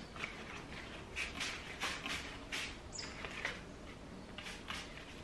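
Plastic trigger spray bottle misting a plant's leaves: a series of short hissing spritzes in quick succession, then a pause of about a second before two more near the end.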